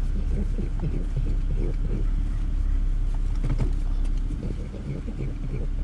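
A dog licking and lapping whipped cream out of a paper cup: quick, irregular wet licks and smacks, easing briefly near the end. A steady low rumble from the car runs underneath.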